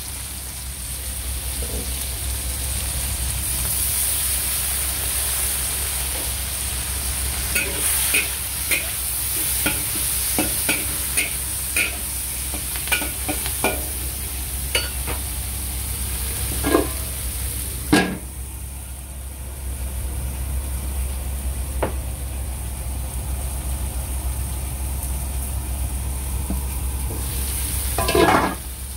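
Shell-on shrimp sizzling in hot oil in a wok, with a spatula scraping and knocking against the pan as they are stirred. The stirring strokes come in a cluster through the middle, with a louder scrape near the end.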